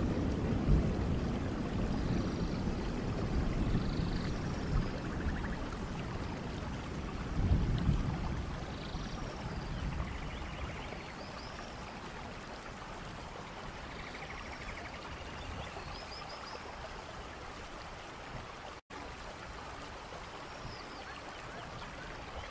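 Rain-and-thunder ambience: a steady rain hiss with low thunder rumbles in the first seconds and again about seven seconds in, then easing to a quieter steady rain. Faint high chirps come and go above it.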